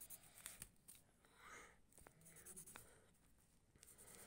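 Faint scratching of a pencil drawing on notebook paper, in short patches of strokes with a few light ticks.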